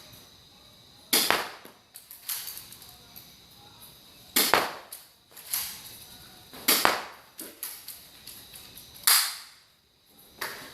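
Spring-action airsoft pistol firing four shots a few seconds apart, each a sharp crack with a fading tail, with fainter clicks between the shots.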